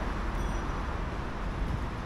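Steady low rumble of vehicles, with no single event standing out.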